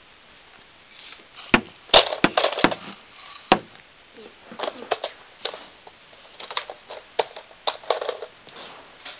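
Hard plastic clicks and clatter of a Nerf blaster being loaded by hand: a handful of sharp clicks in the first few seconds, then lighter rattling and handling noises.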